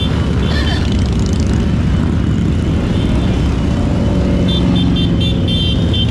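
A procession of motorcycles, heavy cruisers among them, riding past at low speed, their engines running in a loud, steady drone.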